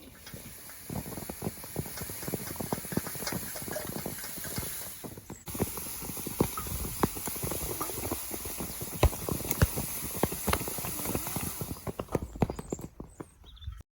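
A dense, irregular run of light clicks and knocks, a few of them sharper, over a steady high hiss. There is a break about five seconds in, and it fades out near the end.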